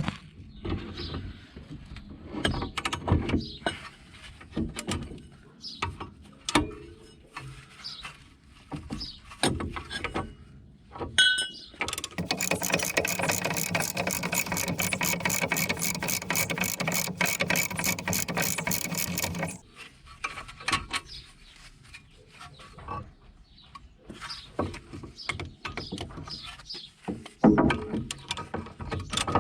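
Metal tools clink and knock on the wheel hub parts. From about twelve seconds in, a power wrench runs for about seven seconds with a fast, even ratcheting clatter over a steady motor hum, undoing a fastener.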